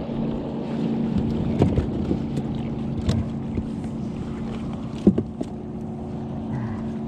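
A steady low motor hum with a few sharp knocks.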